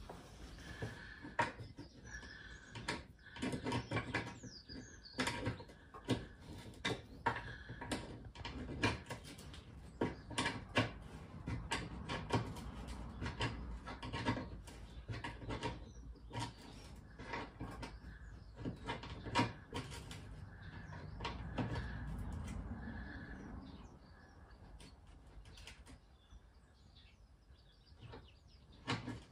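Irregular clicks, knocks and rustles of hands and a tool working a Citroen Ami's headlamp adjusting screw from under the front wheel arch, with short high chirps recurring; it goes quieter about three-quarters of the way through.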